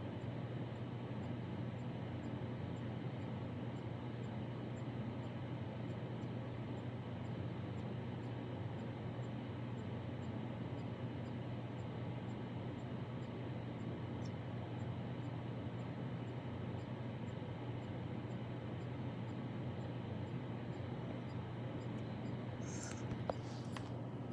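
Steady low hum with an even hiss, unchanging throughout, and a few sharp clicks near the end.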